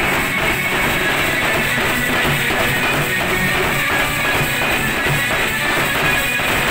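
Several dhols (double-headed barrel drums) beaten together by a live band in a steady, driving rhythm.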